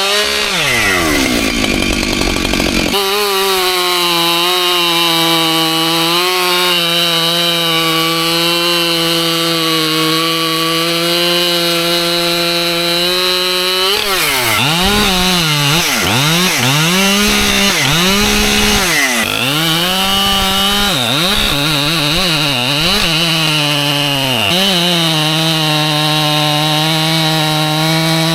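Husqvarna two-stroke chainsaw run at full throttle cutting white oak logs. The engine note is steady for about ten seconds. It then drops and climbs several times over the next ten seconds, and runs steady again near the end.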